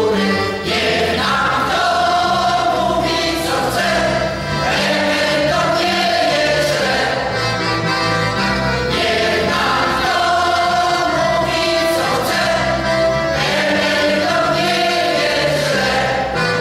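Mixed choir of women and men singing a song, the voices continuous with no pause.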